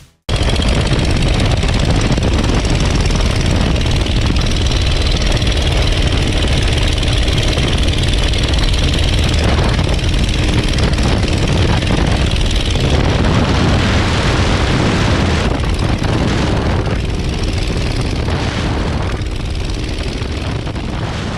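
Verner Scarlet 3V three-cylinder radial engine and propeller of a Legal Eagle XL ultralight running steadily at high power on a ground roll across grass. The sound cuts in abruptly just after the start.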